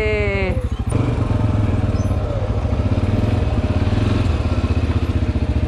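CFMoto 450L ATV's single-cylinder engine running steadily on the move, its firing pulses even throughout. A short falling pitched sound comes in the first half-second.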